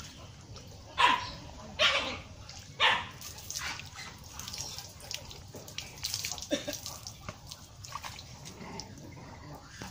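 A dog barks three times, about a second apart. After that comes scattered splashing and dripping as water is poured from a bowl over a horse's back.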